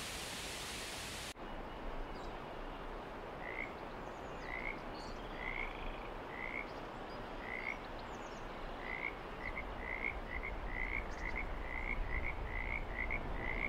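A steady rushing hiss that cuts off abruptly just over a second in, then short high chirping calls repeated in series: about one a second at first, quickening to two or three a second from about nine seconds in.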